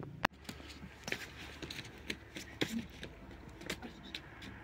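Footsteps crunching on a dry, stony dirt path: a run of irregular steps, about two a second, over a low steady hum. There is a sharp click just after the start.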